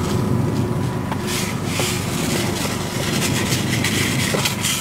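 Motor vehicle running: a steady low rumble with irregular bursts of hiss over it.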